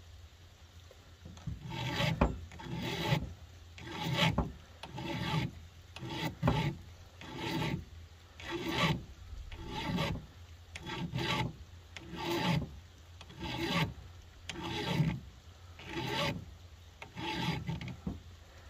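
A flat file rasping in slow, even strokes, about one a second and fourteen in all, across the depth gauges (rakers) of a chainsaw chain, taking a lot off to lower the raker depth.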